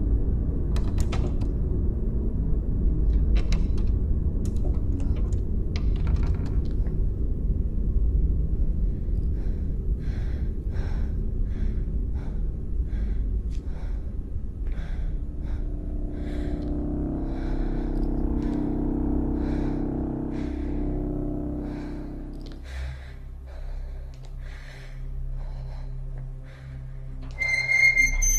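Horror-film soundtrack: a low rumbling drone that fades after the middle, under a string of soft, evenly spaced knocks a little over one a second, and a short high-pitched tone near the end.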